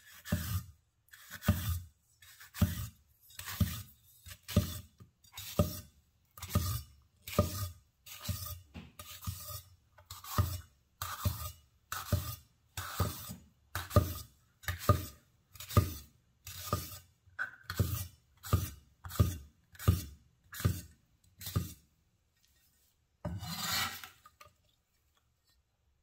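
Chef's knife slicing yellow bell pepper into julienne strips on a wooden cutting board, about one stroke a second. Each stroke is a crisp crunch through the pepper ending in a knock on the board. Near the end comes one longer scrape as the blade is slid across the board under the strips.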